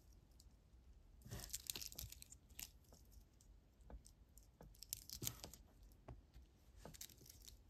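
Faint handling of a stretch bracelet: small scattered clicks and light rustling, with a denser patch of rustle about a second and a half in and another about five seconds in.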